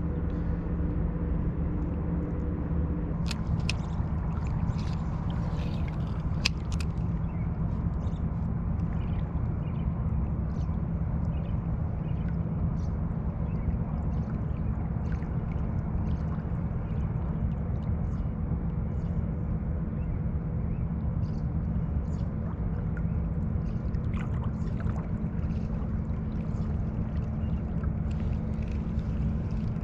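Steady rush of flowing creek water, even and unbroken, with a few faint ticks over it.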